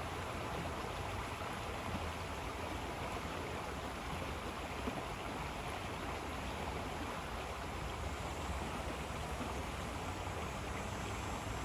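River water flowing steadily in a continuous rush.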